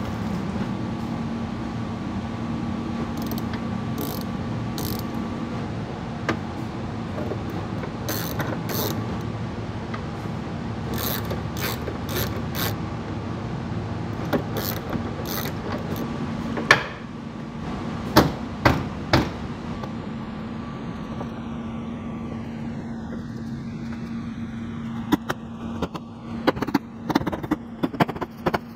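Hand socket ratchet clicking in short strokes as bolts on the Jeep Renegade's liftgate trim panel are run in. This is followed by a few sharp plastic snaps and knocks as the trim panel's clips are pressed home, over a steady low hum.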